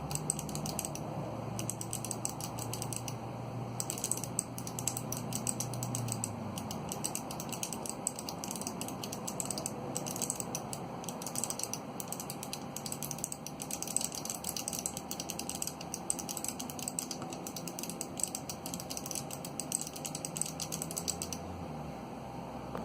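Fast typing on a Gherkin keyboard with Kailh Box Pale Blue clicky switches and no keycaps, at about 51 words per minute: a dense, unbroken run of sharp clicks. It pauses briefly a few seconds in and stops just before the end.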